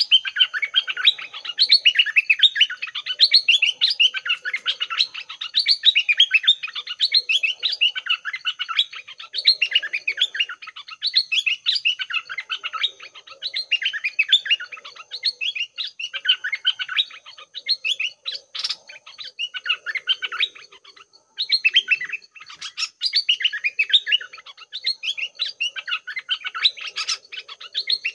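Songbirds singing a rapid, unbroken stream of chirps and warbles, a caged decoy bird calling against a wild one. The song breaks off briefly about two-thirds of the way through, over a faint steady high whine.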